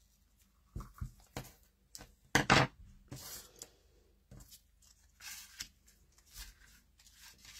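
Small craft scissors snipping through pink satin ribbon, with a few light clicks and then a loud double snip about two and a half seconds in. Soft rustling follows as the ribbon and card are handled.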